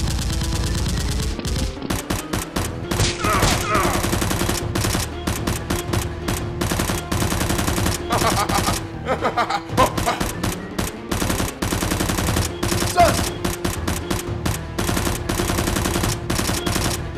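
Rapid, irregular bursts of gunfire sound effects, many shots a second, beginning about two seconds in, over a steady background music bed.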